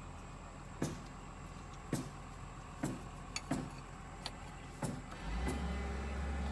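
Six sharp clicks or knocks over a steady low hum; a louder, deeper steady drone comes in about five seconds in.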